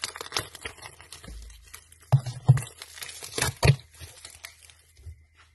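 Packaging of a small cosmetic product crinkling and tearing as it is handled and opened, in a string of short crackles, with a few louder dull thumps about two and three and a half seconds in.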